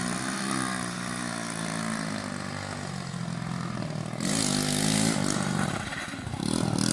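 Motorcycle engine running and being revved, its pitch rising and falling, with two louder rev swells about four and six and a half seconds in.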